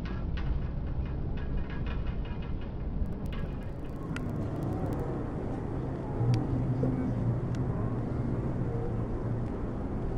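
City street traffic: a motor vehicle engine running with a low, steady hum that gets louder from about six seconds in. A run of short clicks comes in the first few seconds.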